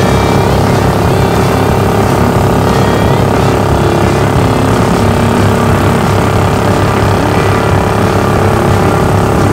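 Predator 420cc single-cylinder engine driving a Mud-Skipper surface-drive mud motor, running steadily at cruising speed with the boat under way.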